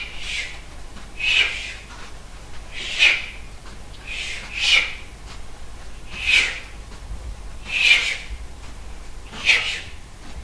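Rhythmic swishes of a scythe mowing grass, one stroke about every second and a half.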